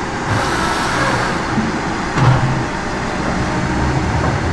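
Diesel engines of a skidder and log truck running steadily as the skidder drags the truck in over a muddy track, with a brief hiss about half a second in.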